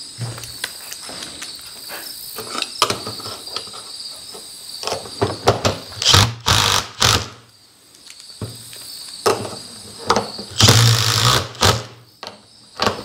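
Cordless impact driver driving machine screws to fasten hinges onto a steel garage door panel, in several short bursts about six seconds in and one longer burst near eleven seconds, with clicks of hardware being handled between. Crickets chirp steadily underneath.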